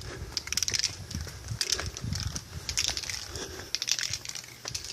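Footsteps crunching over rough, overgrown ground, a step every half second to second, with a low rumble underneath.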